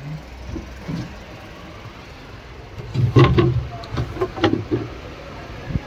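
Steady low rumble of a locomotive workshop. About three seconds in comes a loud cluster of knocks and clatter, with a few more knocks about a second later.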